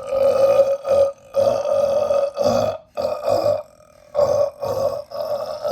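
A man's long, loud burp, drawn out in a string of pulses with short breaks, held at a steady pitch.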